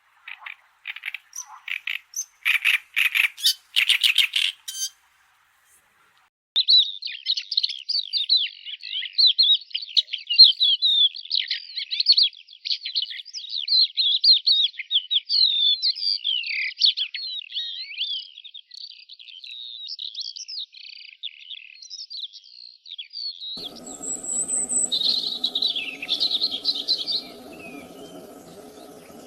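Songbirds singing, in several recordings. First comes a run of sharp chip notes that quicken over about five seconds. After a short pause there is a long rapid warbling song of quick, tumbling notes. Near the end a high thin whistle and a burst of chattering sound over a low background rumble.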